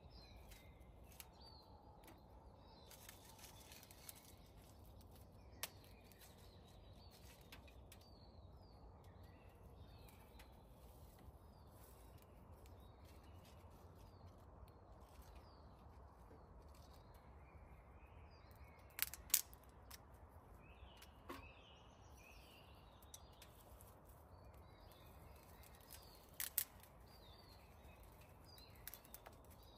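Faint birds chirping throughout, with a few sharp clicks or snaps: a pair about two-thirds of the way through and another pair near the end.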